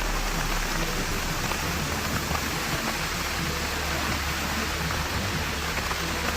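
Steady rushing of water, a dense even hiss with a low rumble beneath it, typical of heavy rain or fast-flowing floodwater.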